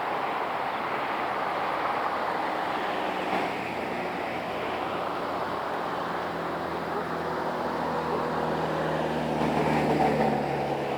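Road traffic ambience: a steady wash of tyre and road noise, with one vehicle's engine growing louder from about halfway through and passing close near the end.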